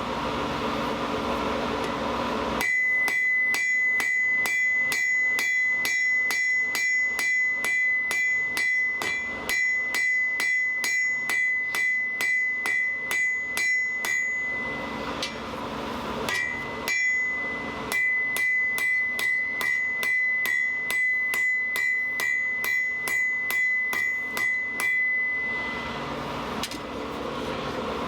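Blacksmith's hammer striking hot steel on an anvil in a steady rhythm of about three blows a second, each blow ringing from the anvil, as the steel bar is drawn out thinner. The hammering starts a couple of seconds in, pauses briefly about halfway and again near the end.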